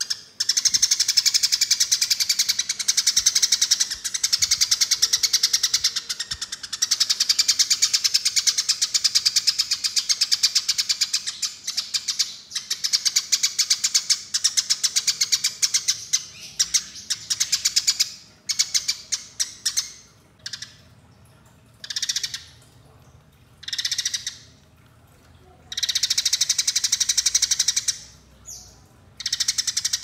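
Eurasian tree sparrow's rapid, harsh chirping chatter, the agitated calling of sparrows fighting. It runs unbroken for most of the first two-thirds, then breaks into short bursts of about a second with gaps between.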